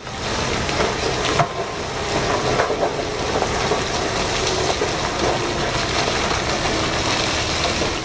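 Rock pouring off the raised bed of a giant mining haul truck as it tips its load: a steady rushing noise of sliding rock over a low rumble, with a brief knock about one and a half seconds in.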